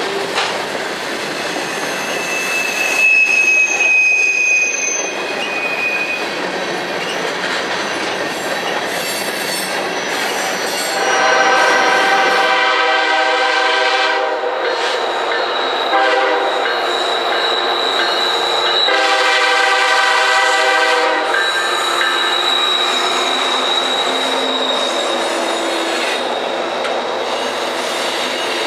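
Freight cars rolling past on curved track with wheel squeal. About eleven seconds in, a diesel locomotive's horn sounds in long blasts, two groups a few seconds apart, at a grade crossing. Then the cars of a loaded coal train roll past with a steady high-pitched wheel squeal.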